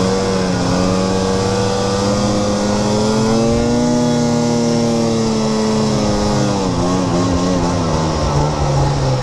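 Snowmobile engine running steadily under way across snow. Its pitch rises a little about three seconds in, holds, then drops back about seven seconds in.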